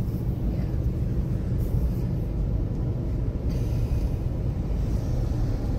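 Steady low rumble of a car's engine and tyres, heard from inside the cabin as the car drives slowly.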